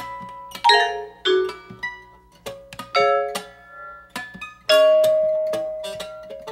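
Free-improvised duo of electric guitar and mallet percussion: sparse, scattered plucked and struck notes that each ring briefly. A long ringing note begins near five seconds in and fades slowly.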